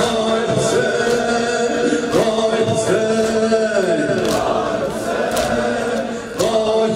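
Crowd of men chanting a Shia mourning lament (noha) in unison, with long held notes that slide down about halfway through. Over the singing, hand slaps of chest-beating keep a beat of roughly once a second.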